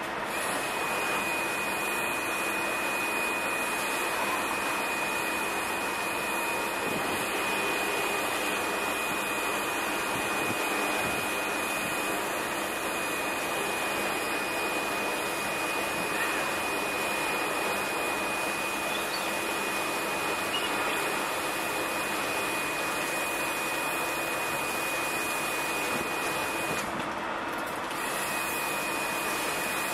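Steady machine-like noise with a constant high-pitched whine running through it; the whine drops out for about a second near the end.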